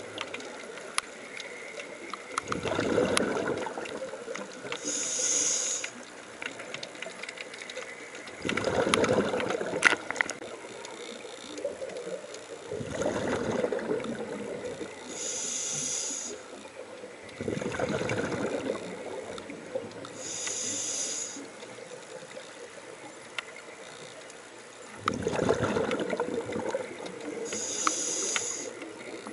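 Scuba breathing through a demand regulator underwater: a short hiss on each inhale and a bubbling rush of exhaled air on each exhale, repeating about every five to six seconds.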